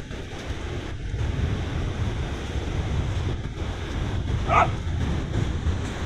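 Wind buffeting the microphone over steady surf, with one short dog bark near the end.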